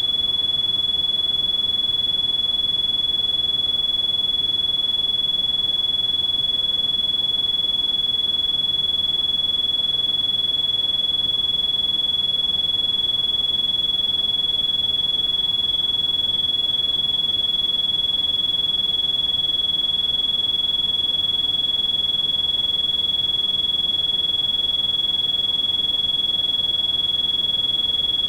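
Synthesized tinnitus-therapy tone: a single steady, high-pitched electronic beep held at constant pitch and loudness, with a faint hiss underneath.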